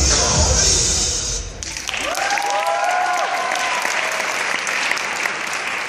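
Hip hop music with a heavy bass beat, cut off suddenly about a second and a half in, followed by an audience clapping and cheering, with a few whoops.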